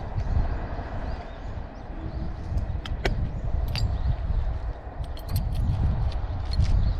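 Low rumble of wind on the microphone, with a few light metallic clinks as hand tools from a motorcycle's stock tool kit are handled, once about three seconds in and several in quick succession past five seconds.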